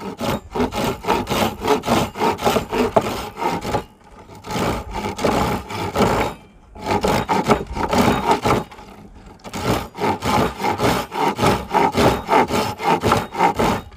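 A coarse-toothed reciprocating-saw blade, fitted as a hand saw, rasping through old, very hard, dry Osage orange in quick back-and-forth strokes. The sawing stops briefly three times, about 4, 6.5 and 9 seconds in.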